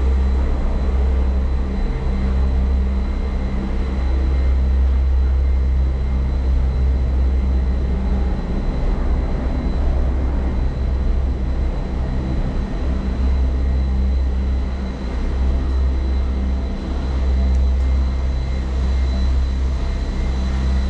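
Gondola lift cabin rumbling steadily as it moves through a lift station, with a thin, steady high whine from the lift machinery.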